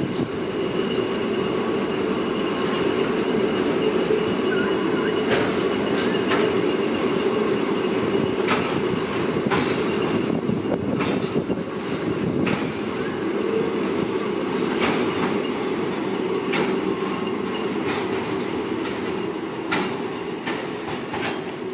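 Intermodal freight train's container wagons rolling past at a street level crossing: a steady rumble with irregular sharp clicks of the wheels.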